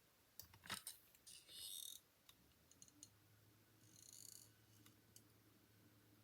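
Faint clicks and two brief, high, scratchy rustles of paper-crafting supplies being handled, such as glue and dimensional adhesive pieces.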